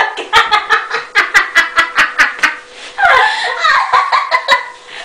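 Women laughing hard in rapid, even bursts, about four or five a second, then breaking into longer, high-pitched laughter about three seconds in.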